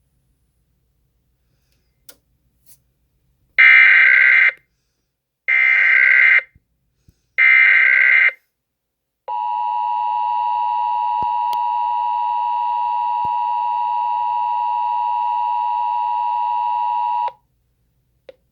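Emergency Alert System tones from a TFT EAS unit: three screeching bursts of SAME header data, each about a second long and two seconds apart, then the steady two-tone EAS attention signal held for about eight seconds. Together they announce a required monthly test.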